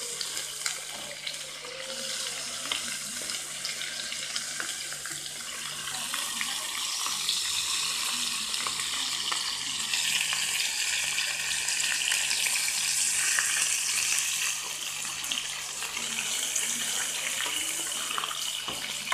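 Seasoned meat pieces sizzling as they fry in hot oil in a frying pan: a steady crackling hiss that grows louder around the middle.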